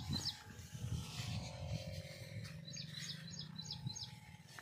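A bird calling a quick run of about five short, high chirps in the middle, with a couple more at the start, over a constant low rumble and a faint steady hum of open farmland.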